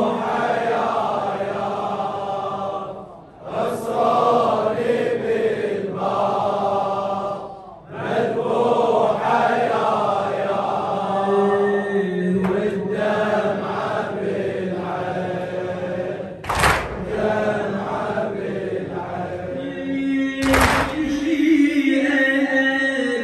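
Men chanting a Shia mourning lament (latmiyya) in unison, led by a reciter over a microphone, in phrases with two brief breaks. Two sharp thumps cut through the chanting in the second half.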